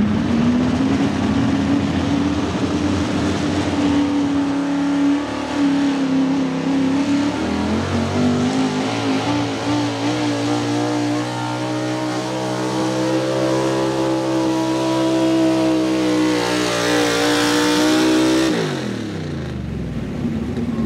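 Outlaw 4x4 class pulling truck's engine held at high revs under load on a pull, its pitch climbing slowly for several seconds, then winding down sharply near the end.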